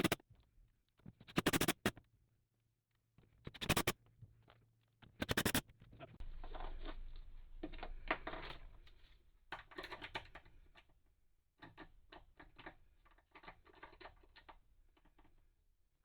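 Metal toilet hold-down bolts scraping and clicking in the slots of a metal toilet flange as they are fitted by hand. There are three short, sharp scrapes in the first six seconds, then a longer scrape and a run of small clicks that thin out near the end.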